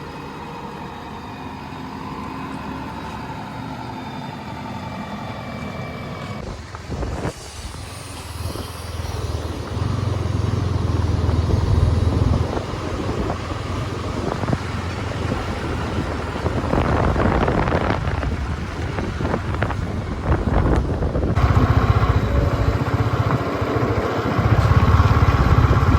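A vehicle engine running while the vehicle is driven, surging louder about ten seconds in and again near the end.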